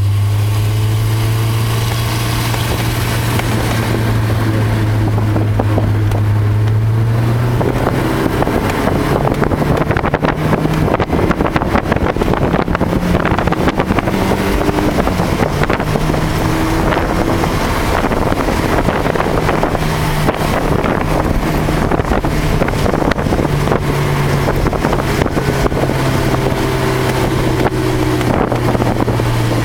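Car engine running at a steady low pitch, its note stepping up slightly about seven seconds in, over a continuous rushing hiss of wind and wet-road noise during a slow lap in the rain.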